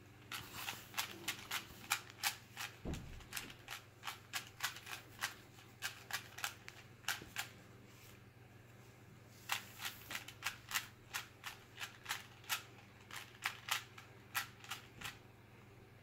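Plastic 3x3 Rubik's Cube clicking sharply as its layers are turned in quick runs of several turns a second, with a pause of about two seconds near the middle.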